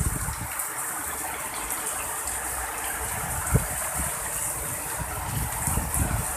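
Heavy rain pouring steadily in strong wind, with gusts buffeting the microphone as a low rumble that grows toward the end. A single sharp knock about halfway through.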